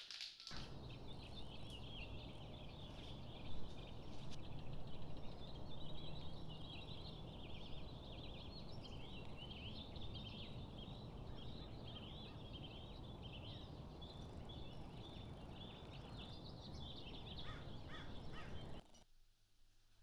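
Outdoor ambience: many small birds chirping and twittering without a break over a steady rushing background noise. It cuts off suddenly near the end.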